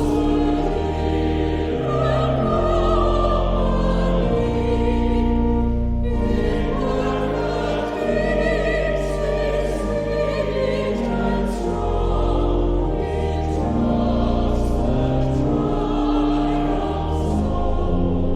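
Choir and congregation singing a slow hymn with vibrato, over held low pipe organ chords.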